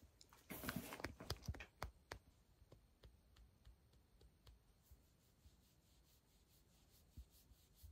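Faint rustling of fur and blanket with scattered small clicks as a border collie shifts and settles against a person, louder briefly about a second in; otherwise near silence.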